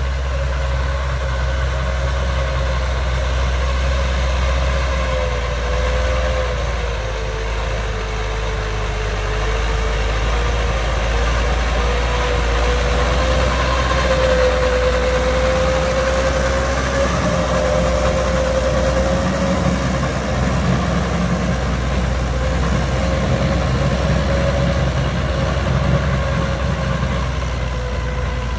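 Massey Ferguson 290 tractor's four-cylinder diesel engine running steadily while working a rotary tiller in dry soil, with a whine that drifts slightly in pitch.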